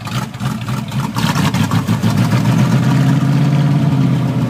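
Car engine idling just after a cold start, with a lumpy, uneven idle that sounds "cammed". About two seconds in it settles into a steadier, slightly louder running.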